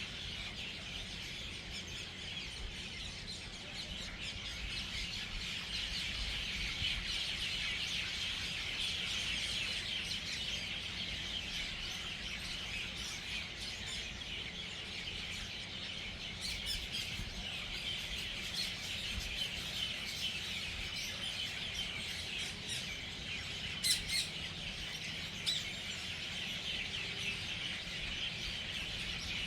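A large flock of birds chattering as they settle into an evening roost: many overlapping chirps and squawks in a dense, continuous din that swells a few seconds in, with a couple of sharper, louder calls near the end.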